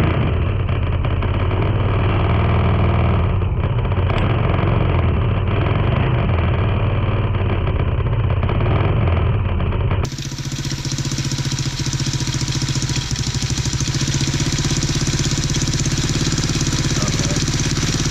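Tao Tao 110cc ATV's small single-cylinder four-stroke engine running steadily on its newly fitted carburetor. About ten seconds in the sound changes abruptly to a brighter, evenly pulsing run of the same engine.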